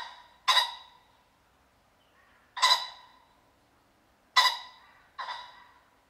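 Common pheasant calling: five short calls that start sharply and die away quickly. Two come close together at the start, one comes about two and a half seconds in, and two more come near the end.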